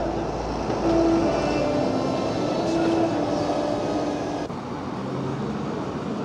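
Train running, a steady rumble with short held tones at shifting pitches; the sound changes abruptly about four and a half seconds in.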